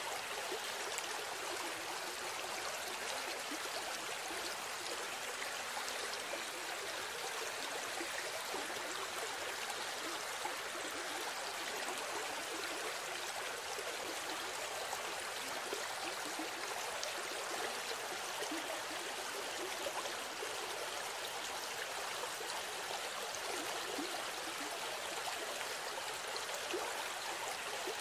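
Steady rush of water, an even hiss with no distinct events and no change in level.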